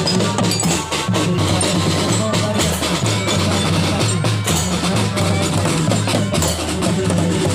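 Children's marching drum band playing snare drums, bass drums and cymbals: quick, dense drum hits over low held bass notes that change about once a second.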